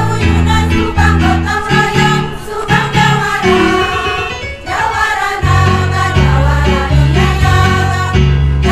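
Women's choir singing a song in harmony over a low, stepped bass accompaniment; the bass drops out for about a second midway.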